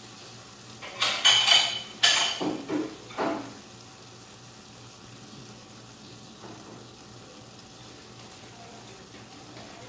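Metal kitchen utensils and cookware clattering for a couple of seconds, starting about a second in, with a ringing metallic edge; after that only a faint steady hiss.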